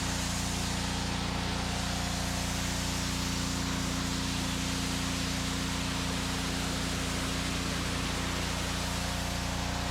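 Pressure washer running steadily, its motor humming under a constant hiss of water spray as the car's carpet is washed.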